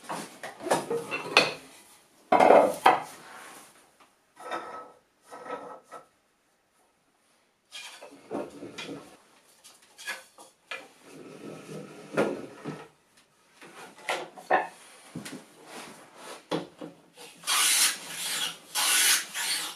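Wooden knocks and rubbing on a workbench as a board is handled and set, then, near the end, a hand plane taking about three quick strokes along the wood.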